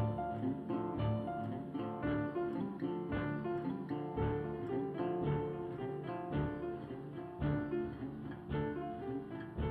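Background music: plucked acoustic guitar playing a melody over a steady rhythm.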